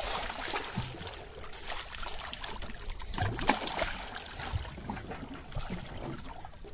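Seawater sloshing and splashing against a boat's side where a landed tuna is held in the water by hand, with a sharper splash about three and a half seconds in.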